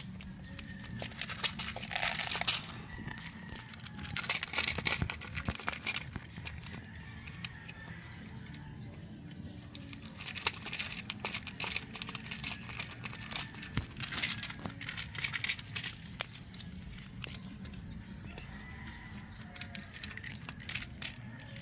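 Cat crunching dry kibble: quick, crackly chewing clicks that come in spells of a second or two, several times over.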